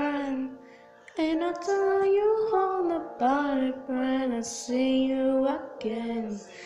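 A female voice singing a slow melody alone, holding long notes, with a short break about a second in.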